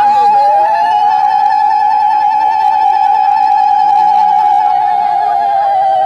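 Two women ululating (Bengali uludhwani), each a high, fast-warbling trill held on one breath; the second voice joins about half a second in, a little lower in pitch.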